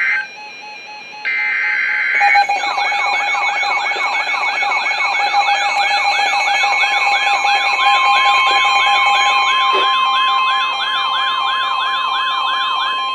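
NOAA Weather Radio emergency alert: a short burst of screechy SAME data tones, then a weather alert receiver's warbling siren, sweeping up and down about three times a second over a steady alert tone. A second steady tone joins partway through. It signals that a severe thunderstorm warning is being issued.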